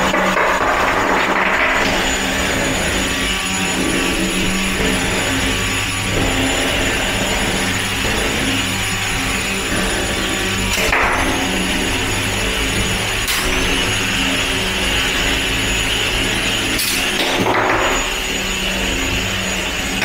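Spinning weapons of antweight combat robots whining steadily while the robots drive and clash. A few sharp hits land in the second half, and after each the high whine dips and climbs back as the weapon spins up again.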